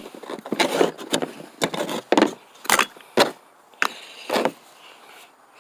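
Metal hand tools such as pliers clinking and clattering against each other as they are handled and set down, a dozen or so sharp clanks over about four seconds that die down near the end.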